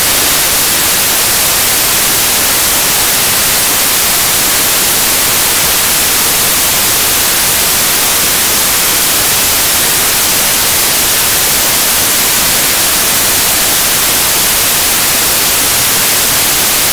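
Loud, steady static hiss, brightest in the high end, unchanging and with no other sound over it.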